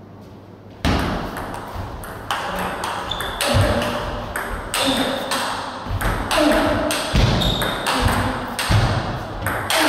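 Table tennis rally: the ball clicking sharply off the bats and the table in quick, uneven succession, starting about a second in.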